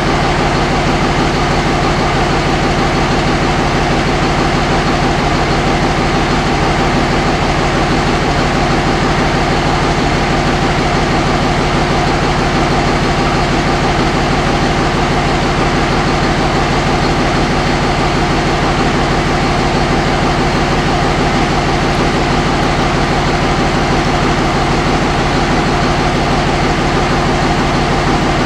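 2005 Dodge 5.9 Cummins common-rail inline-six turbodiesel idling steadily, not yet up to operating temperature.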